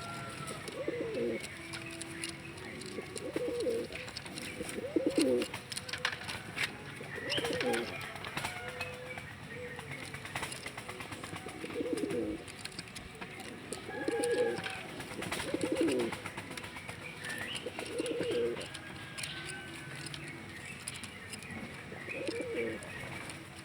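Domestic pigeon, a Persian fancy pigeon, cooing over and over: a low, rolling coo about every two seconds.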